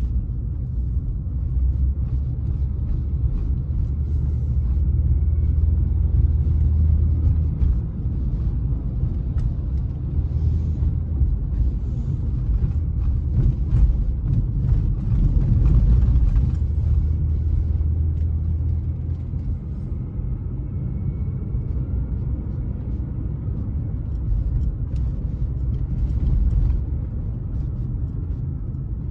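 Car cabin road noise while driving on city streets: a steady low rumble of engine and tyres, swelling briefly about halfway through.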